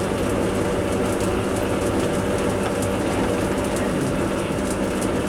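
Metal lathe running steadily with a countersink cutting into the end of the turned spindle, an even mechanical hum.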